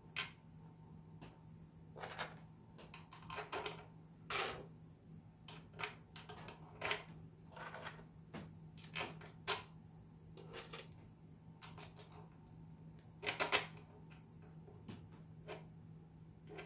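Small irregular clicks and taps of a metal outboard setback mount being handled and fitted against a model boat's wooden transom, with a louder cluster of knocks about thirteen seconds in.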